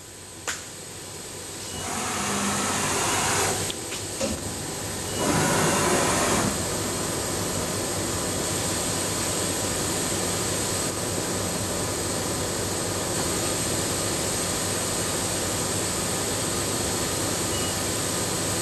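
Trak TRL 1540SX CNC lathe switched on and running: a click, then a whirring noise that builds up with two louder surges in the first several seconds before settling into a steady, even whir.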